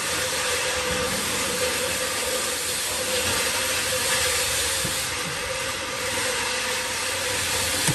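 Steady, loud hiss with a steady mid-pitched hum under it, unchanging throughout: continuous workshop machinery noise, pretty loud.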